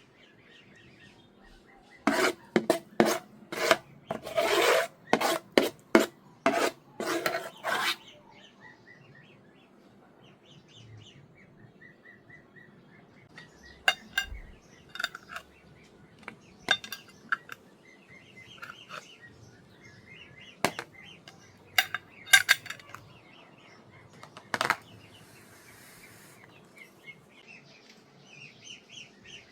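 A run of quick scraping strokes, a kitchen utensil rubbing against a cooking vessel, for about six seconds, then scattered clinks and a few faint bird chirps.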